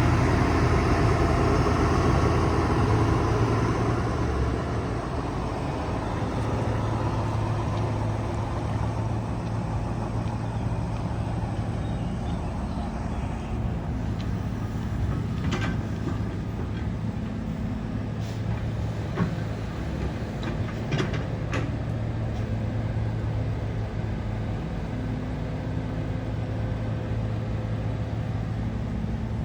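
Diesel engine of a heavy earthmoving machine running steadily, louder for the first few seconds and then settling lower. A few sharp knocks come in the second half.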